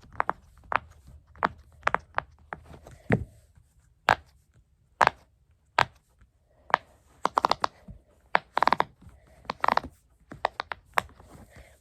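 A plastic fidget toy worked by hand: irregular sharp clicks, with a few short ratcheting rasps in the second half.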